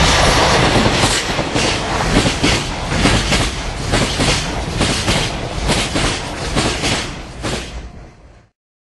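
Freight train passing close by: the DD51 diesel locomotive's engine rumble at the start gives way to container wagons rolling past, their wheels clicking over the rail joints about twice a second. The sound grows fainter and then cuts off suddenly near the end.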